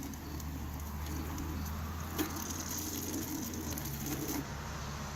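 Water running into a knife-slashed plastic bucket, a steady splashing hiss, with a small knock about two seconds in.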